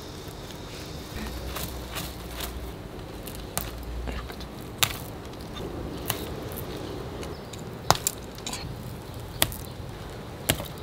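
Small clay pebbles in a ceramic pot clicking and crunching as fingers dig among them around the plant's stems, in irregular sharp clicks, the loudest near the end.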